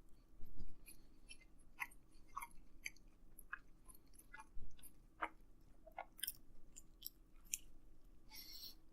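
A person chewing a mouthful of pizza sandwich close to the microphone: faint, irregular mouth clicks and smacks.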